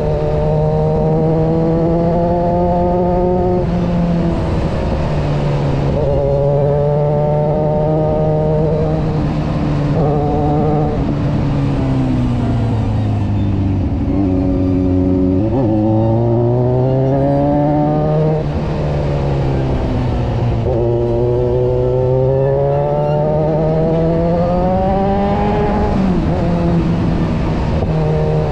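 Kawasaki Versys 1000's inline-four engine running under way, its note rising and falling as the rider rolls on and off the throttle and changes gear, lowest about halfway through. Wind rush runs underneath.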